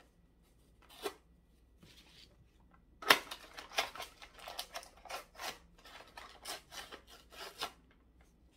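Clear plastic blister packaging and its cardboard backing being pulled apart by hand: a single click about a second in, then a sharp crack about three seconds in followed by several seconds of quick crackling and crinkling of the plastic.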